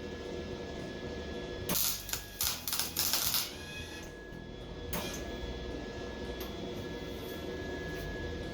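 A few short bursts of arc welding about two seconds in: tack welds on the stretched mini bike frame's tubing. A single sharp click follows about five seconds in.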